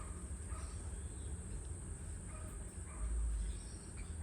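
Steady high-pitched insect drone, crickets or cicadas, with a few faint short bird chirps scattered through it, and a brief low rumble about three seconds in.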